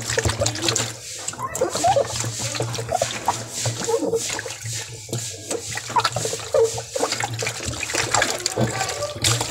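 Water running and splashing into a plastic bucket, over a steady low hum.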